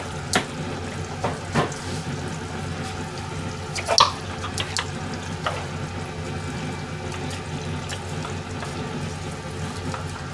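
Plastic food containers and utensils knocking and clicking on a stainless steel kitchen counter, a few separate clacks with the loudest about four seconds in, over a steady rushing hiss.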